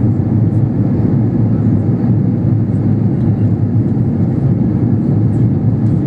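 Steady low cabin roar inside an Airbus A330-300 airliner descending on approach: engine and airflow noise heard from a window seat.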